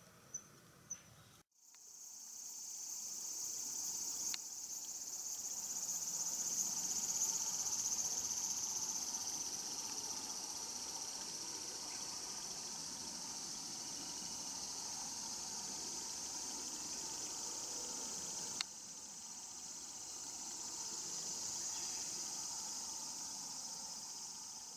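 Steady, high-pitched drone of an insect chorus, cutting in suddenly about a second and a half in after a couple of faint ticks. A sharp click near three quarters of the way through, after which the drone goes on slightly quieter.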